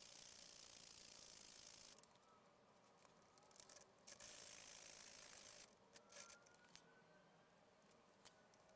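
Hacksaw strokes cutting through the metal hub of a telescope tripod's spreader strut: a faint rasping for about two seconds, then a second spell of about a second and a half a little before the middle. A few light clicks follow near the end.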